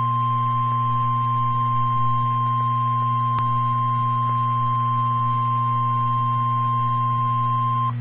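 NOAA Weather Radio 1050 Hz warning alarm tone: a single steady high beep held for about nine seconds, cutting off just before the end, over a low steady hum. There is a brief click about three and a half seconds in.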